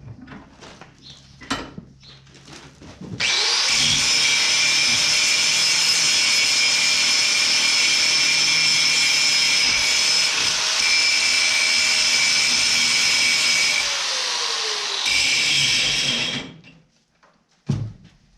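A power grinder grinding the galvanized coating off steel lag bolts to clean them up. It starts about three seconds in and grinds steadily with a high whine for about thirteen seconds, with a brief break near the end, then winds down; a few light knocks come before it and one sharp knock after it.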